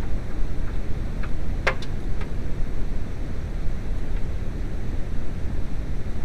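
Steady low rumbling noise with a few short, sharp clicks, the loudest about a second and a half in.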